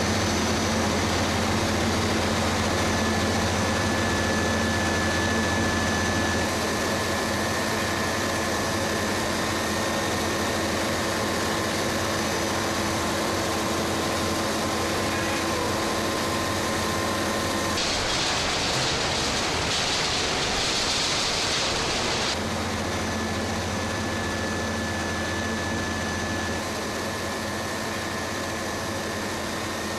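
Palm oil mill machinery running with a constant drone and steady hum. A loud hiss rises over it for about four seconds in the middle.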